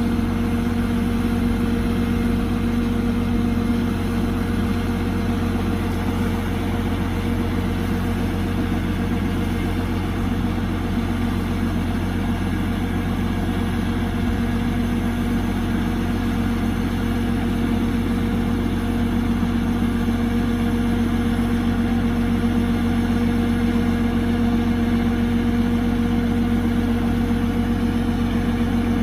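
Kubota DC-105X combine harvester's engine and machinery running steadily at constant speed, a loud, even hum that holds one pitch throughout.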